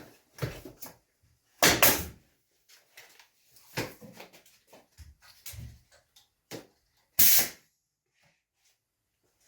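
Pneumatic staple gun firing sharp shots into wood, the loudest about two seconds in and again near the end, amid smaller knocks and clicks of handling.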